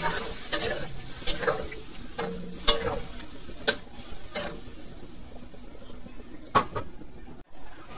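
A metal spatula stirring green banana and potato pieces in a kadai, with scattered scrapes and clinks against the pan. Under it is a steady sizzle of the curry in the water just added. The sound briefly drops out near the end.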